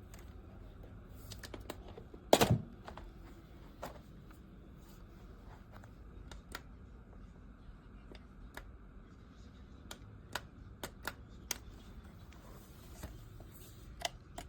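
Scattered light clicks and taps, with one loud knock about two and a half seconds in. No motor is running.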